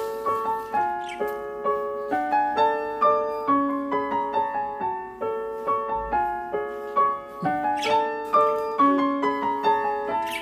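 Background piano music playing steady melodic notes, with a few short high chirps from a pair of lovebirds over it near the start and again about eight seconds in.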